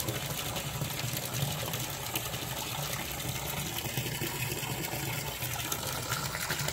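A garden hose running well water into a half-filled swimming pool, its stream splashing steadily into the water. A steady low hum runs underneath.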